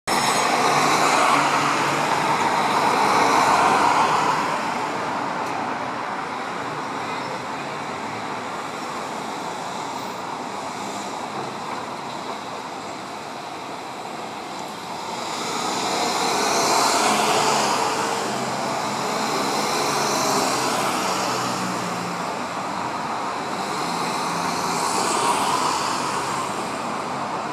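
Road traffic passing on a city street: cars go by in several swells of tyre and engine noise, one at the start, others about two-thirds of the way through and near the end.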